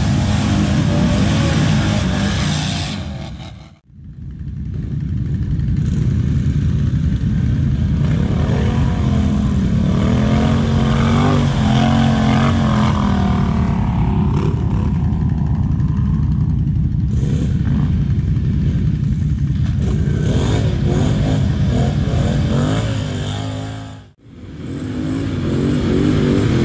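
ATV (quad bike) engines revving hard and rising and falling in pitch as the quads churn through deep mud. The sound dips out briefly twice, about four seconds in and near the end.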